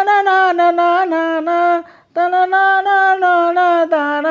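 A man singing a Tamil film song unaccompanied in a high voice, holding long notes with a short break about two seconds in.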